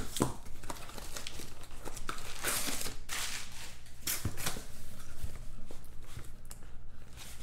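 Crinkling and tearing of the packaging on sealed trading-card boxes being opened, in irregular rustling bursts.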